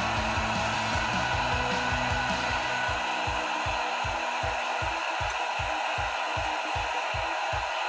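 Gorenje K17CLI 2.2 kW electric kettle heating a full tank of water toward the boil, a steady rushing hiss. Under it, background music with a low bass line, then a steady low beat of about three thumps a second.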